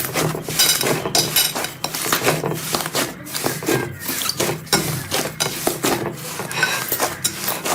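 Slime being squeezed and worked by hand, with dense irregular clicking and popping.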